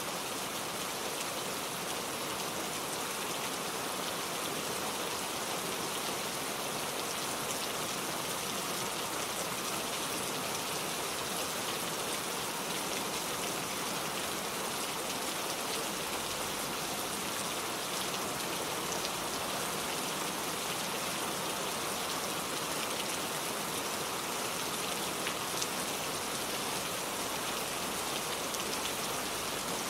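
Heavy rain falling steadily, a dense even hiss with many fine drop patters on surfaces.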